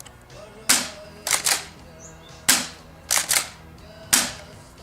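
CYMA CM.355 spring pump-action airsoft shotgun fired three times, each shot a sharp crack. Between the shots the pump is racked back and forward in two quick clacks.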